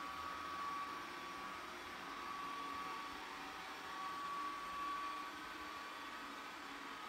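Ecovacs Deebot M88 robot vacuum running as it drives across a tiled floor: a steady whir with a high motor whine that swells and fades slightly.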